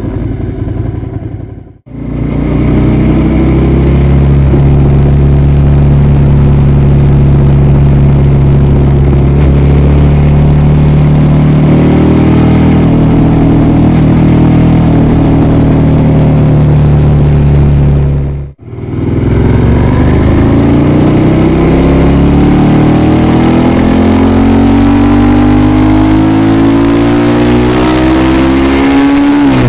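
Suzuki SV650A's 645 cc V-twin engine and exhaust running loud at a steady pitch, then, after an abrupt cut, accelerating with its note rising steadily.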